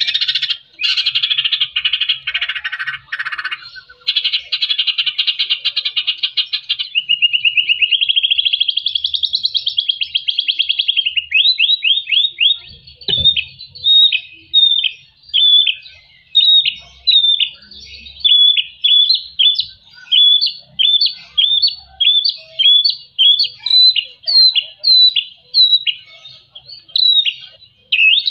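White-rumped shama (murai batu) singing: a fast, rattling chatter for the first several seconds, then a warbling trill that rises and falls, then a long run of short, clear down-slurred whistles at about two a second.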